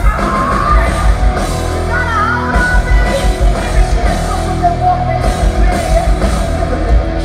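Live heavy metal band playing loudly, with pounding drums and bass under the guitars and vocals.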